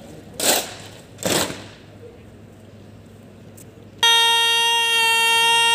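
Parade commander's drawn-out shouted word of command, held on one high, steady pitch for about two and a half seconds from about four seconds in before cutting off sharply. Near the start there are two short, sharp noisy bursts.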